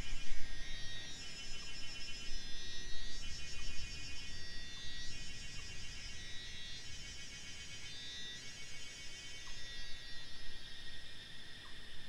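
Mountain ambience of high, buzzy insect calls pulsing on and off in phrases of about a second, over a steady low rumble.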